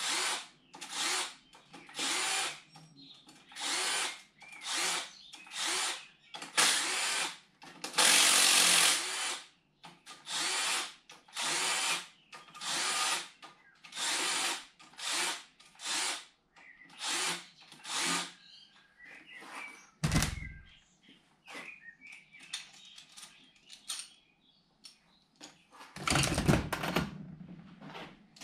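Cordless power drill/driver run in short trigger bursts, about one a second, with one longer run a third of the way in, working the camshaft sprocket bolts on a motorcycle engine. Later there is a single knock, and a louder clatter near the end.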